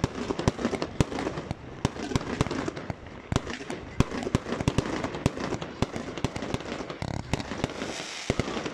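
Fireworks going off in a display: a fast, irregular string of sharp bangs and pops, several a second, as ground-launched fireworks fire stars and comets into the sky.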